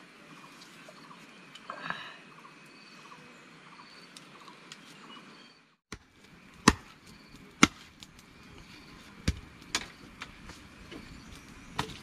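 Sharp chopping knocks, about five of them a second or two apart in the second half, over a faint steady insect drone.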